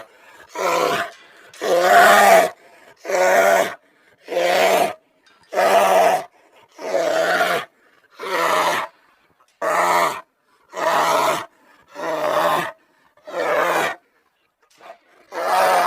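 Sound-effect calls of a made-up creature: a string of about a dozen short, pitched animal calls, each under a second long, coming roughly once a second with silent gaps between.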